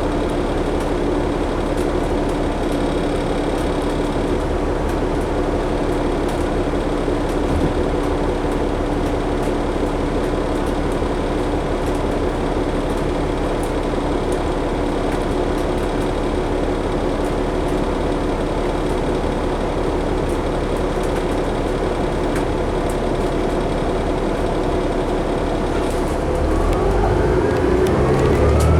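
2011 New Flyer D60LFR articulated diesel bus heard from inside the cabin, its engine running steadily at low revs. Near the end the engine speeds up as the bus accelerates, its whine rising in pitch.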